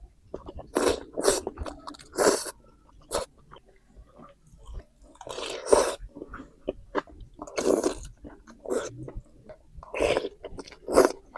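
Close-miked eating of instant noodles and meatballs: bouts of chewing and biting come and go every second or so.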